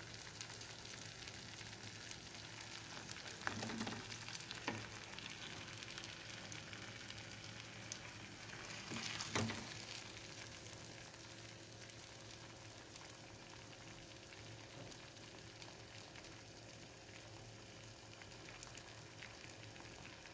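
Mıhlama of cornmeal and melted cheese sizzling faintly in a metal pot as it cooks, with a few knocks of the spoon against the pot about four seconds in and a louder one a little past nine seconds.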